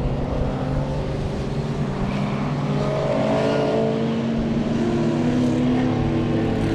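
Historic race car engines running hard on track, a strong engine note holding and shifting slightly in pitch as the cars pass and drive through a bend.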